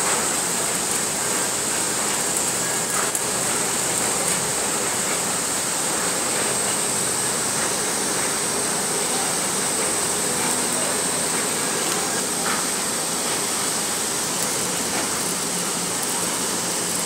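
Steady, continuous rushing hiss of industrial noise at a mill repair site, with a strong high-pitched edge and no breaks.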